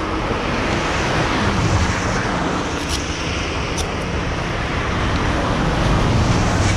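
Motorcycle engines idling at a standstill under a steady, dense rumbling noise, with a couple of faint ticks about three and four seconds in.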